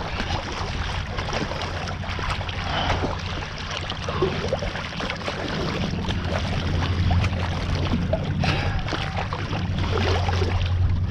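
Steady rushing of wind and water past a kite hydrofoil board while riding, with scattered small splashes.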